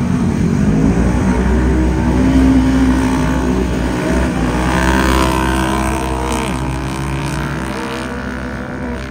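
Several side-by-side UTV engines running hard in a race, their pitches rising and falling with the throttle. The sound grows gradually quieter through the second half as the machines move away.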